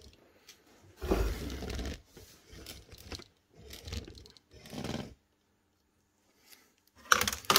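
Rustling and rubbing handling noise in a few short bursts, the loudest about a second in, then quiet for the last two seconds.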